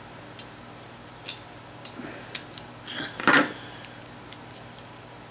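Scattered light clicks and taps of small objects being handled on a tabletop, with a louder clatter a little past halfway.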